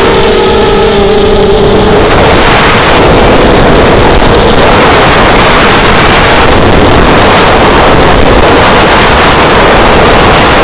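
FPV racing quadcopter's brushless motors and propellers buzzing loudly in flight, picked up by the quad's onboard camera. A steady motor whine shifts slightly in pitch in the first two seconds, then blends into a rushing noise of propellers and wind.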